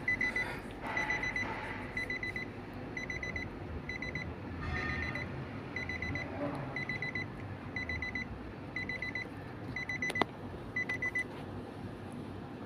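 An electronic warning beeper sounds short groups of rapid high-pitched beeps, about one group every three-quarters of a second, and stops near the end. There is a sharp click about ten seconds in.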